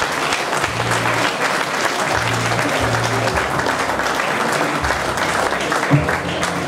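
Audience applauding steadily, with music playing low notes underneath and a brief thump about six seconds in.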